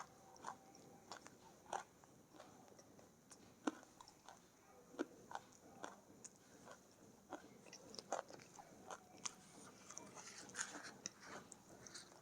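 Faint chewing of dry edible clay (vanilla flake clay) in the mouth: irregular small, crisp crunches scattered throughout.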